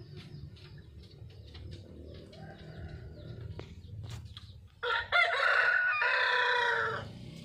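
A rooster crows once, starting about five seconds in: a single loud call lasting about two seconds.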